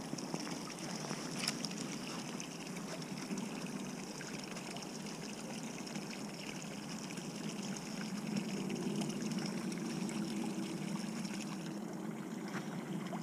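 Small river's water trickling and running steadily, with a faint click about a second and a half in.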